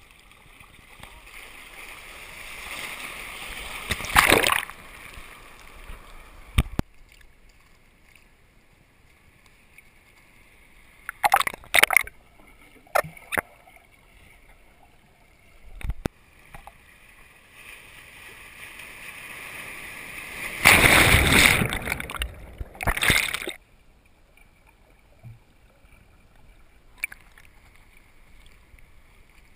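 Shallow surf sloshing and splashing around a camera at the waterline, with two loud rushes of water, one about four seconds in and a longer one around twenty-one to twenty-three seconds in. Short knocks and splashes come in between.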